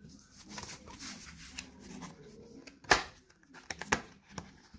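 A cardboard package being handled by hand: faint rustling and scraping, with one sharp tap about three seconds in and a few lighter ticks after it.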